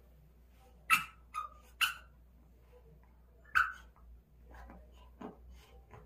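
Small poodle giving short, sharp play barks: four loud ones in the first four seconds, then a few fainter yips.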